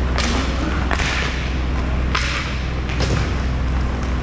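Roller hockey play: inline skates and sticks scraping and knocking on the rink floor in a few short bursts, with dull thumps, over a steady low rumble.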